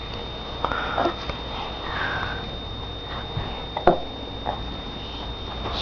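A baby hiccuping: a few short, sudden hiccups, the sharpest about four seconds in, with brief small vocal sounds between them.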